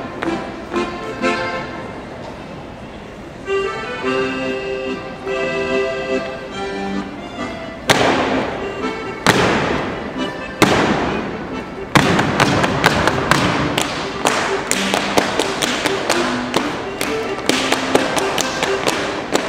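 Accordion playing a Bavarian folk dance tune. About eight seconds in come three loud claps a little over a second apart, then from about twelve seconds a rapid, continuous run of Schuhplattler slapping: hands striking thighs and shoe soles, with claps and stamps, over the accordion.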